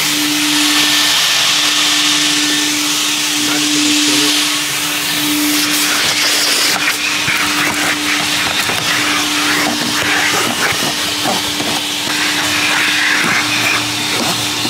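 Car-wash vacuum running loud and steady, a constant hum under the rush of suction air. From about six seconds in there is irregular crackling and scraping as the nozzle works over the car's floor carpet.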